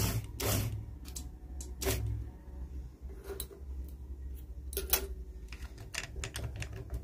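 Low, steady hum of a shoe-stitching machine's motor while its bobbin is refilled, with a couple of short whirring bursts in the first two seconds. Then scattered small clicks of handling and the snip of scissors cutting the thread.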